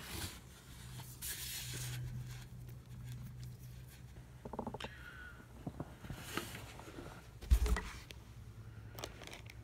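Handling noises from a small framed solar panel and its cable being turned over and moved about: rustles and light knocks, with one heavier low thump about three quarters of the way through.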